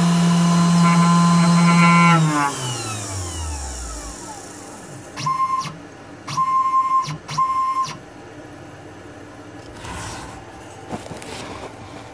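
CNC router spindle running with a steady whine, then winding down about two seconds in, its pitch falling steadily as it coasts to a stop. Three short high-pitched buzzes follow as the machine moves.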